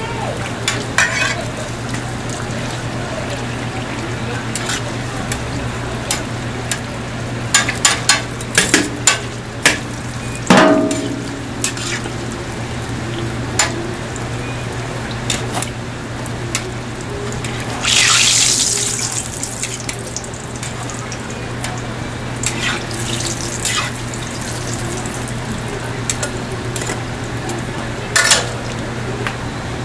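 Hotteok frying in a shallow layer of hot oil on a griddle: a steady bubbling sizzle, with sharp clicks and scrapes of metal tongs turning the pancakes, over a steady low hum. A louder hiss swells about 18 seconds in and fades over a couple of seconds.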